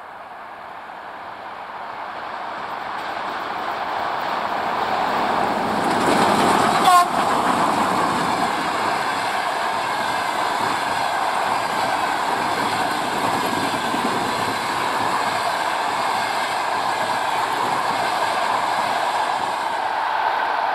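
ChS8 electric locomotive hauling a passenger train, approaching and passing close by, growing steadily louder over the first six seconds. A brief sharp sound comes about seven seconds in as the locomotive goes past. After it the coaches roll by with a steady rolling noise and clatter of their wheels on the rails.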